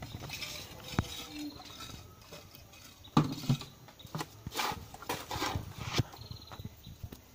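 Crushed stone being scooped from a heap with a hand scoop and dropped into plastic tubs: irregular clattering and scraping of stones, with the sharpest knock about three seconds in and a run of rattling a little later.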